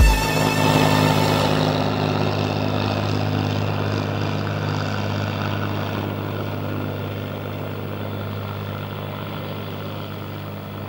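Single-engine propeller plane flying past low overhead: a steady engine drone that slowly fades as it moves away.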